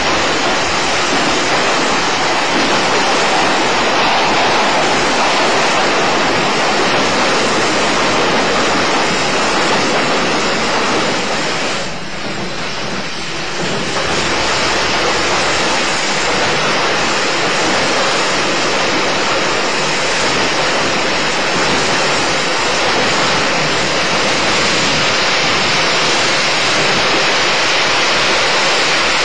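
Running sound of a JNR 80-series electric train's motor car, MoHa 80342, under way: a steady, dense rumble of wheels and traction motors that dips briefly quieter about twelve seconds in.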